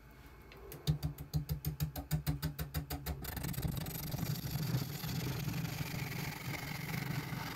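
Wood lathe spinning a resin-filled oak log while a hand-held turning tool trues its end face. About a second in the tool knocks against the spinning end in a fast even rhythm, about eight knocks a second; after about three seconds this gives way to a steady continuous cut over the hum of the lathe.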